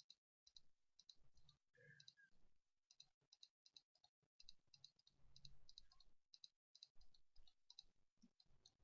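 Faint computer mouse clicks, a quick irregular series of sharp clicks often coming in close pairs.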